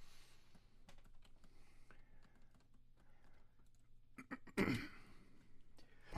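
Light scattered clicks of computer keys being pressed, with two louder brief bumps, one about four and a half seconds in and one at the very end.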